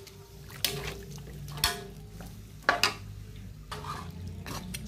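A spatula stirring chicken pieces in broth in a pan, sloshing the liquid, with sharp knocks and scrapes against the pan about once a second.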